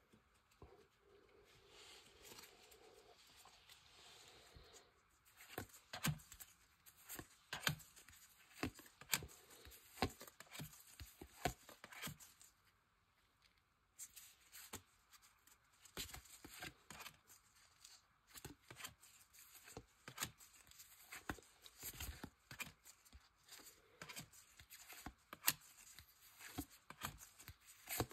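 Trading cards and foil pack wrappers being handled: faint rustling, then, from about five seconds in, a run of quick, irregular clicks, crinkles and card slides that pauses briefly about halfway through.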